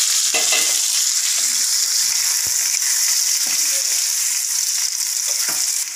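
Boiled potato chunks frying in hot oil in a nonstick kadai: a steady high sizzle, with a few soft knocks of a spatula as they are stirred.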